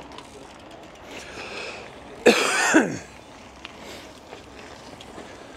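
A person coughing, two harsh coughs about half a second apart, a little past the middle.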